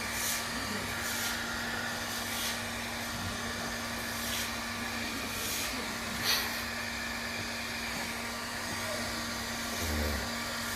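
Handheld hair dryer running steadily, blowing air over a freshly washed small dog's wet coat, with repeated brief hissing swishes as the airflow is moved about.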